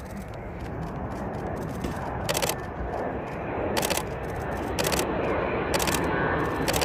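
Jet noise from a formation of a large four-engined jet and three fighter jets as it approaches, a steady rush growing louder. Several short clicks sound over it.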